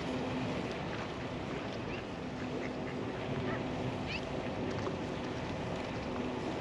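Ducks quacking, with small bird chirps, over a steady outdoor hiss.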